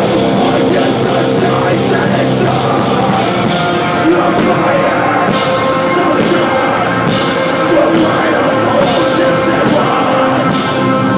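A post-hardcore band playing live: loud distorted guitars over drums with crashing cymbals.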